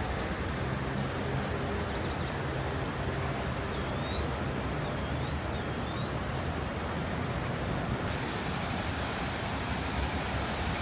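Steady hiss of rain, with a low engine hum from a vehicle in the first few seconds.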